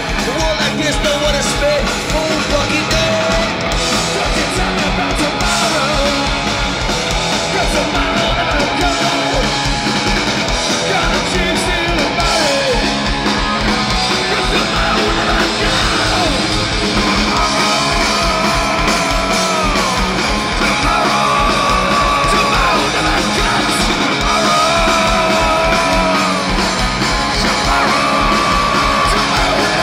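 Punk rock band playing live through a loud PA: distorted electric guitars, bass guitar and drums, with vocals.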